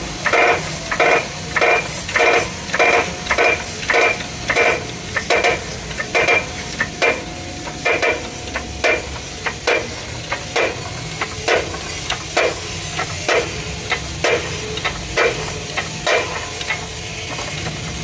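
Hand-pumped hydraulic bottle jack in a shop press creaking with each stroke of its handle as it presses on an air-cooled motorcycle cylinder barrel: a rhythmic train of short creaks, two to three a second at first, becoming fainter and more spaced out in the second half.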